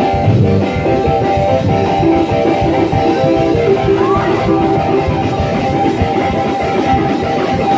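Church band playing a steady instrumental vamp, with electric guitar, a sustained keyboard chord and drums.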